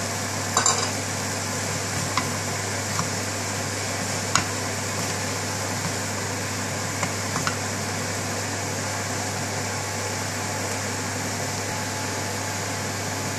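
Wooden spoon stirring chickpeas and diced potato in a frying pan, giving a few light knocks against the pan, over a steady hum and hiss.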